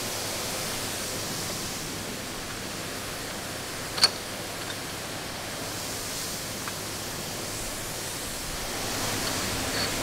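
Steady hiss of workshop background noise, with one sharp metallic click about four seconds in from a steel locking collar being fitted by hand onto a tank suspension unit's shaft.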